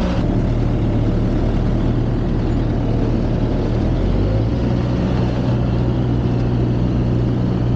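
Heavy engine running steadily at a low, even speed.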